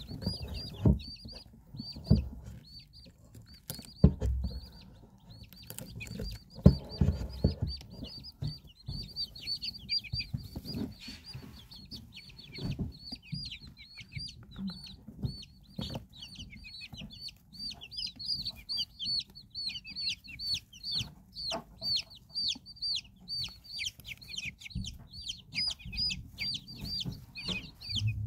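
Young chicks peeping almost nonstop, short high cheeps several times a second, with a few dull thumps, the loudest about four and seven seconds in.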